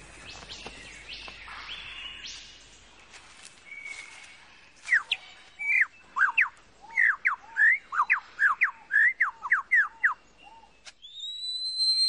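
Superb lyrebird singing: a fast run of loud whistled notes sweeping down and up, about two a second, then a long rising whistle near the end.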